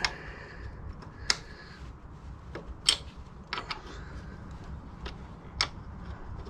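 Sharp metallic clicks, about five at uneven intervals, as a hex key is fitted and turned in the rear-axle pinch bolt to tighten it.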